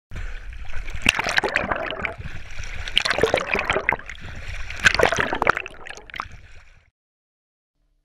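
Water splashing and sloshing, with irregular sharp splashes through it, fading out near the end.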